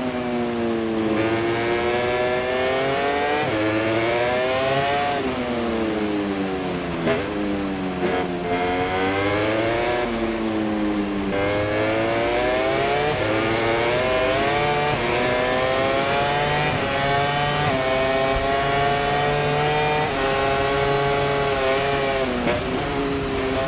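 MotoGP racing motorcycle engine at full race pace: it revs up through the gears with quick breaks at each shift, then the revs fall away under braking and downshifts before it climbs again, several times over.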